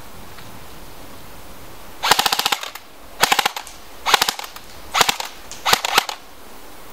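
G&P Magpul M4 CQB airsoft electric rifle (AEG) firing on full auto: five short bursts starting about two seconds in, each a fast, even rattle of the motor-driven gearbox cycling shot after shot.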